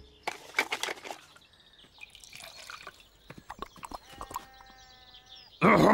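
Small clinks and taps, then dripping liquid as tea is poured from a thermos flask into a cup, with a short steady tone about four seconds in. A loud call cuts in near the end.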